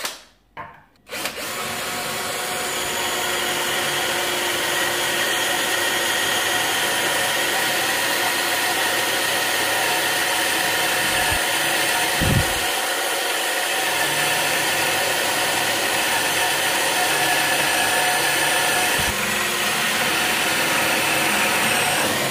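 Parkside PBSA 20-LI A1 20 V cordless drill boring into metal. After two short blips, it runs steadily from about a second in with a continuous motor and gear whine. A single low knock comes about halfway through.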